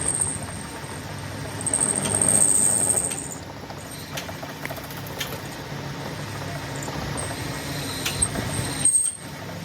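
Vehicle engine running steadily, with a high-pitched hiss that comes and goes, loudest about two to three seconds in, and a few light clicks.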